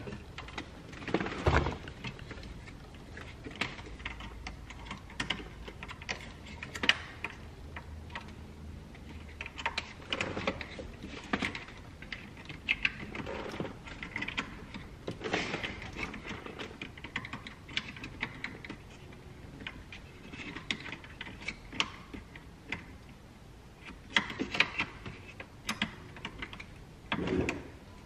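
Scattered plastic clicks, taps and rustling as a car's dashboard trim panel is handled and worked into place in the dash, with a few sharper clicks among them.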